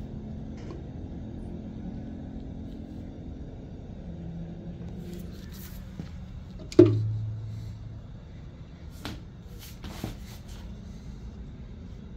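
A glass tank knocking sharply once on a tile floor about seven seconds in, with a brief low ring after it, then two lighter knocks a few seconds later. A low steady rumble runs underneath.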